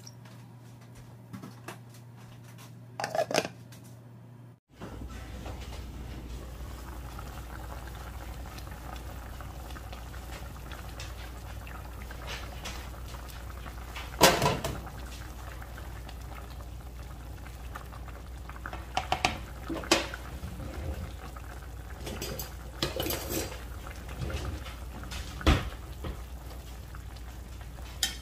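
Braising sauce simmering in a frying pan of chicken pieces, a steady bubbling hiss from about five seconds in, with several sharp clinks of metal tongs against the pan, the loudest about halfway through.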